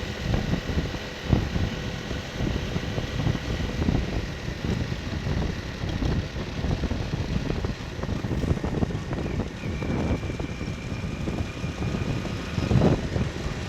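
Motorcycle riding along a road, its engine running under a low, gusty rumble of wind on the microphone.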